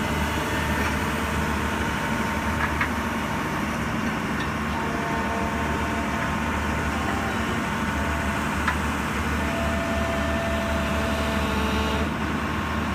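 Hyundai 140 long-reach excavator's diesel engine running steadily, with a couple of brief clicks.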